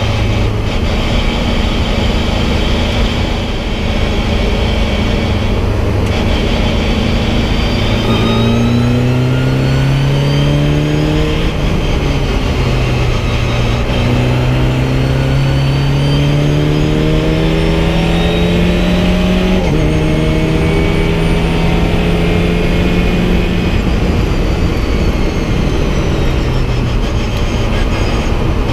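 VW Fun Cup race car's engine heard from inside the cockpit, holding steady revs at first, then accelerating hard with the pitch climbing and dropping twice at upshifts, over a steady rush of road and wind noise.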